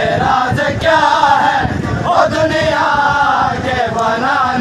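A group of men chanting a noha, a Shia mourning lament in Urdu, together in unison.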